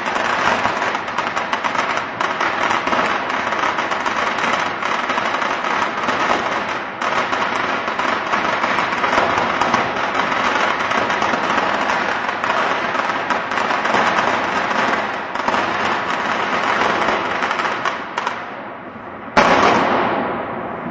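A long string of firecrackers going off in a dense, continuous crackle of rapid small bangs. It thins out and quietens near the end, then one loud bang rings off.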